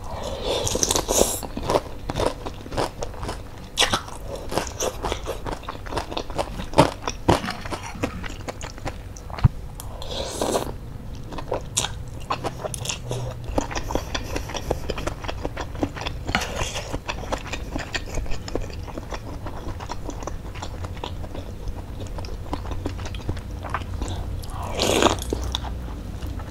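Close-up eating sounds of a person eating bakso meatball soup with noodles: chewing and biting with many small wet clicks, and slurps of noodles and broth near the start, about ten seconds in, and near the end.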